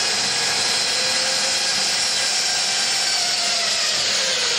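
Zipline trolley pulleys running along a steel cable, a steady whirring hiss with a faint whine that drops slightly in pitch near the end as the rider slows on the approach to the platform.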